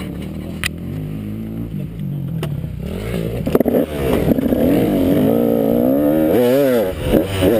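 KTM 200 XC-W two-stroke single-cylinder engine running low and steady, then rising in pitch and loudness as the bike pulls away, its revs swinging up and down several times near the end.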